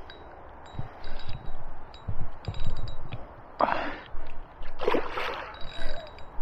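A spinning reel and rod being handled with light clicks, then two short splashy rushes about three and a half and five seconds in, as a roach dead bait is cast and plops into the river.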